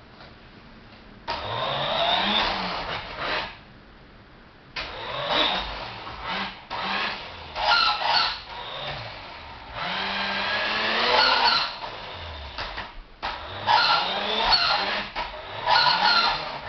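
Electric drive motor and plastic gears of a 1986 Tyco Turbo Hopper RC buggy whining in about five bursts of a few seconds each as it is driven in spurts, the pitch rising as the motor spins up at the start of several bursts.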